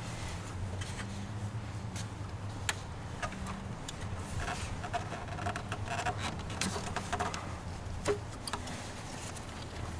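Light scattered clicks and taps of plastic intake parts being handled and fitted in a car's engine bay, over a steady low hum.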